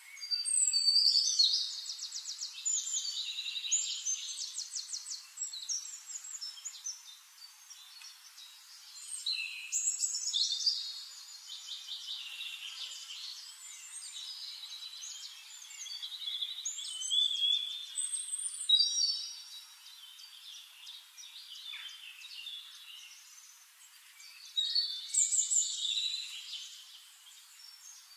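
Songbirds singing: about four phrases of rapid high trills and chirps, a few seconds apart.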